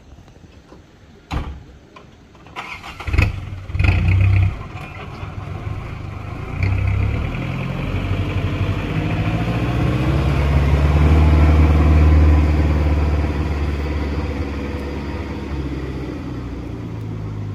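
A small flatbed truck's engine running as the truck drives past up close. The engine builds to its loudest about twelve seconds in and then eases off. A few loud knocks come about three to four seconds in.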